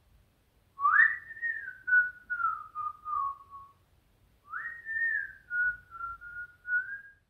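A person whistling a short tune in two phrases, each opening with a quick upward slide and then drifting slowly down in pitch.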